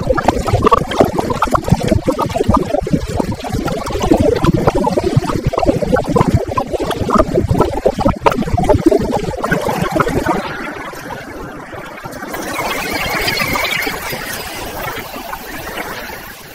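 Wind and rain buffeting a handlebar-mounted action camera on a motorcycle riding through heavy rain, a loud, choppy noise. About ten seconds in it drops to a softer, higher hiss that swells and fades.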